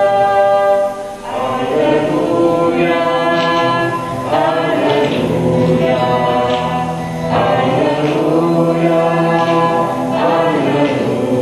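A man and a woman singing a song in Polish together, with acoustic guitar accompaniment, in long held phrases.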